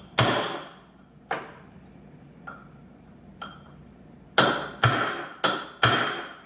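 Hammer striking a center punch on steel, each blow ringing: a few spaced taps, then four harder, quicker blows near the end. The punch is marking hole positions for drilling.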